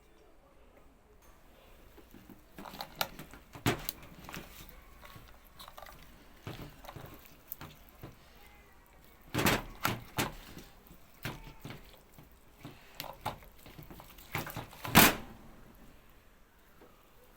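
Irregular clicks, knocks and thuds of objects being handled, with the loudest knocks about nine and a half and fifteen seconds in.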